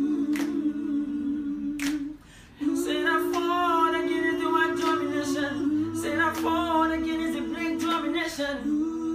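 A cappella vocal group singing held, hummed chords in close harmony. The chord breaks off briefly about two seconds in, then returns with a higher voice singing a melody over it.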